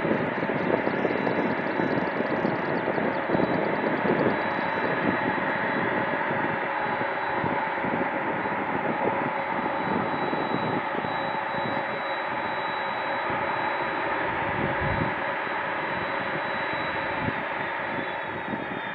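Boeing 767-300ER's General Electric CF6-80C2 turbofans running at idle as the airliner taxis slowly onto its stand: a steady high whine over a broad rumble. Near the end the whine starts to fall in pitch.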